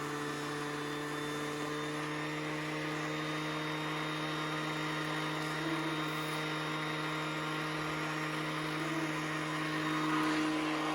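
Hetty toy vacuum cleaner's small battery motor running with a steady hum, growing a little louder near the end.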